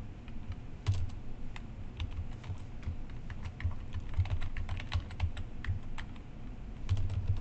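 Typing on a computer keyboard: a string of irregularly spaced keystroke clicks.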